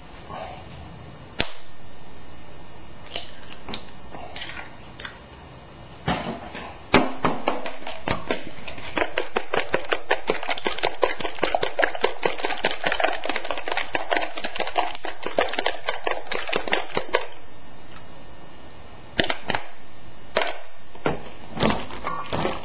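Rapid, even clicking for about ten seconds, as of a utensil working in a bowl, with a few separate sharp knocks before and after it.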